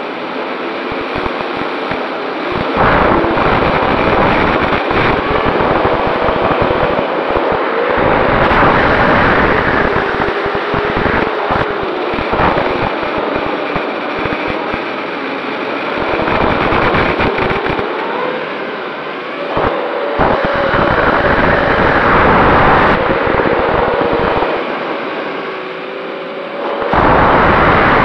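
MJX Bugs 3 quadcopter's brushless motors and propellers whining, heard through its own onboard camera, during a fast spiral descent. Rushing wind noise surges over the motor whine several times, each surge lasting a few seconds.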